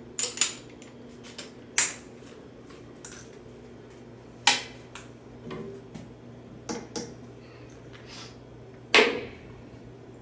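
Metal tools and fittings clinking and knocking against a cast-iron air compressor pump head as it is worked on by hand: a string of separate sharp clicks and knocks, the loudest near the end, over a steady low hum.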